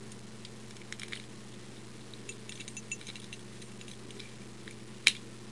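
Light metallic clinks and clicks of an old Yale warded lock and its keys being handled: a few faint clicks about a second in, a run of small clinks through the middle, and one sharper click near the end.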